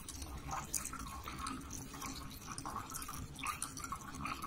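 Water dripping and splashing inside a clear plastic bottle as a cat drinks with its head inside it. The drips and small splashes come irregularly.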